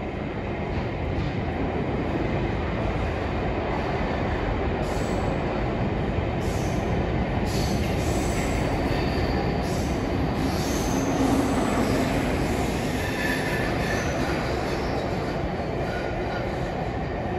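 Train running past at close range, a steady rumble that swells and eases, with brief high squeals from the wheels over the second half.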